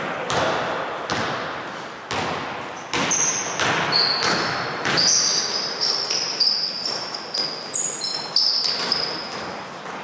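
Basketball being dribbled on a hardwood gym floor, each bounce echoing in the large hall, with short high sneaker squeaks on the floor joining in from about three seconds in.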